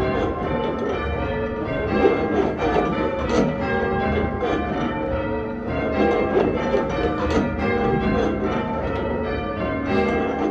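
A ring of five church bells being rung in changes, full circle, the bells striking one after another in an even, unbroken rhythm with their tones ringing on and overlapping. It is a Doubles method in progress, just after a called single.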